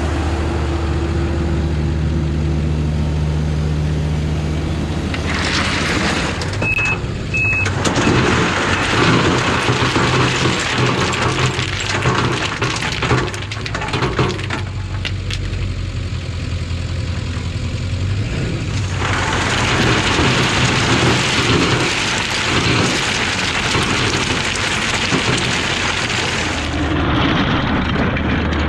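A diesel engine running steadily under a loud rushing noise, with many clattering knocks through the middle. Two short high beeps come about seven seconds in.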